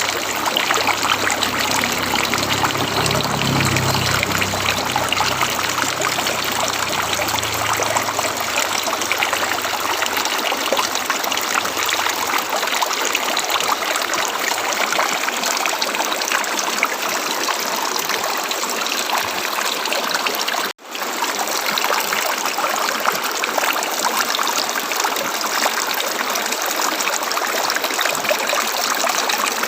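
River water flowing, a steady rush and trickle, with a low rumble under it in the first ten seconds. The sound drops out for an instant about twenty-one seconds in.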